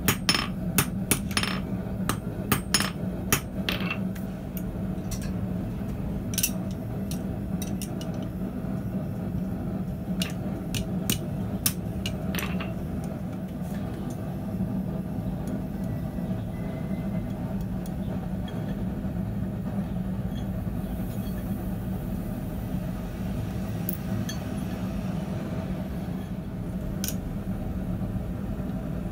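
Hand hammer striking a glowing steel bar on a steel bending jig, a quick run of ringing blows in the first four seconds, then a few scattered clinks of steel on steel. A steady low hum runs underneath.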